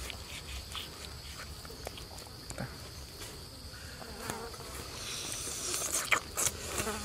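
A steady, high-pitched insect buzz, with light clicks and scrapes of a knife cutting through grilled crocodile skin that grow sharper in the last couple of seconds.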